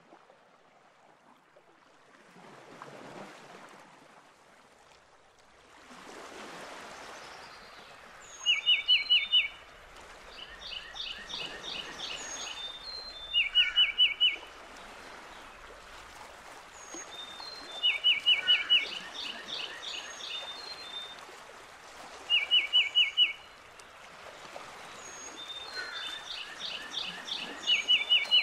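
Birds calling over a rushing of water that swells and fades. Short bursts of about five quick high notes, the loudest sound here, come back at even spacing about every four to five seconds, with thinner chirps around them.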